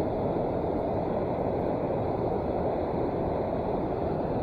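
Steady low rushing of the river's flowing water, even and unbroken.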